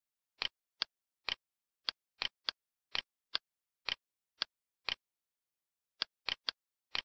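Computer mouse clicking: about fifteen sharp clicks at an uneven pace, some in quick pairs, with a pause of about a second near the end.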